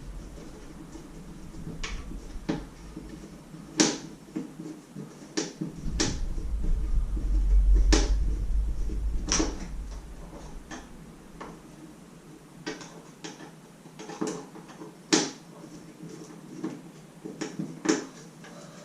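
Scattered light clicks and clinks of an Allen key working the bolts on a motorcycle's plastic side-panel covers, about one every second or so, with a low rumble from about six to ten seconds in.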